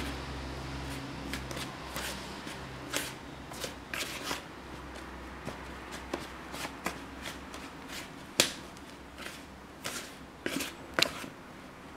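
Plastic dough scraper scraping and tapping against a mixing bowl as it cuts an egg into flour: irregular dry scrapes and knocks, with one sharper knock a little past eight seconds in.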